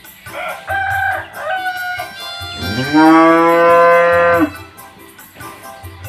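A Limousin-cross heifer mooing once: one long call about three seconds in that rises at its start and then holds level for nearly two seconds. The calling is typical of a heifer in heat. Dangdut backing music with a flute tune and a pulsing bass plays under it.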